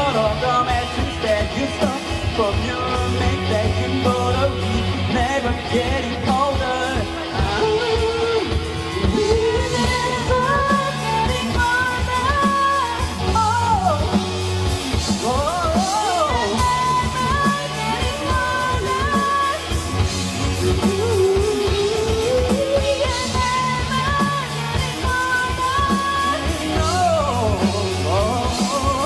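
Live rock band playing a song: a male lead vocalist sings over electric guitars, bass and drums, with sliding vocal runs midway and near the end.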